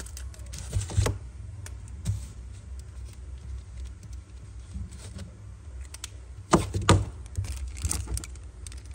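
Metal Zippo lighter being handled: a few soft clicks and taps, then two sharp metallic clacks less than half a second apart about two-thirds of the way through, over a low steady hum.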